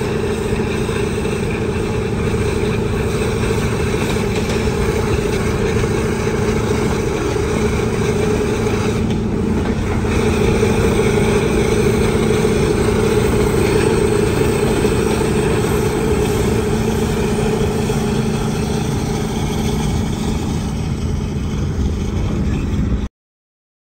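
Steady rush of wind and road noise through an open car window while driving at speed, with a low steady hum, as a diesel train runs alongside. The sound swells slightly midway and cuts off suddenly near the end.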